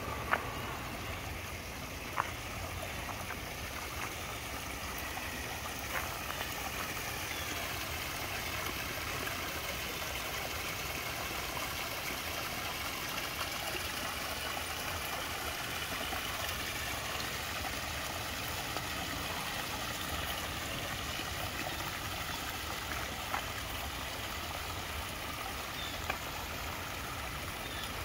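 Small rock waterfall of a koi pond, water spilling and splashing steadily over the stones in a continuous rush, with a few faint clicks.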